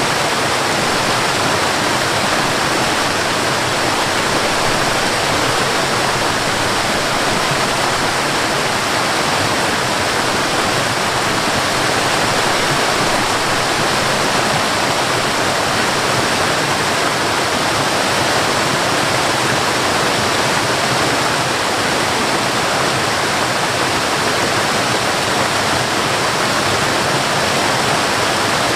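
Waterfall and river water rushing, a loud steady roar of falling and flowing water that does not change.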